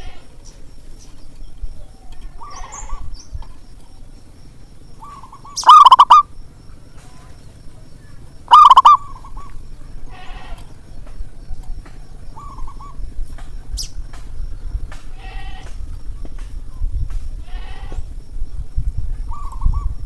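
Zebra doves cooing: a series of short, trilled, rolling coos, most of them faint, with two much louder close coos about six and nine seconds in.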